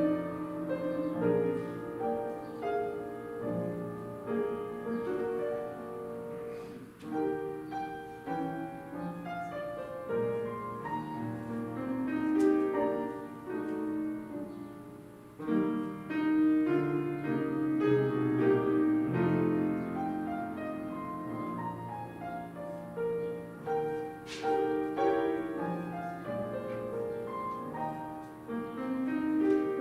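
Piano playing an instrumental piece, with chords and melody notes ringing on.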